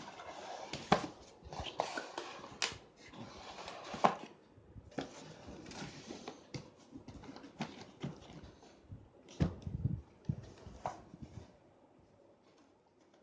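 Handling noise from unpacking: rustling with a run of sharp clicks and knocks, stopping about a second before the end.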